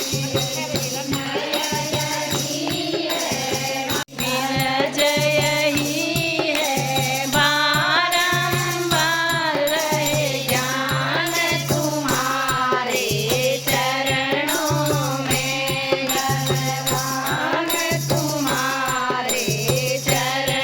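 Devotional Hindu bhajan, voices singing a melody over a steady low drone with percussion accompaniment. There is a brief cut in the sound about four seconds in.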